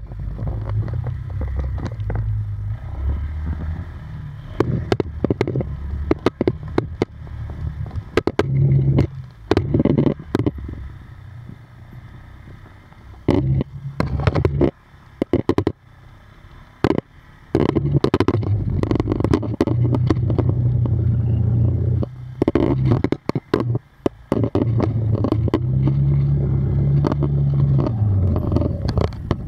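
Small off-road vehicle engine being ridden over a rough dirt trail, its revs rising and falling with the throttle. The engine eases off in the middle and picks up again about six seconds later, with many knocks and clatters from the ride over the ground.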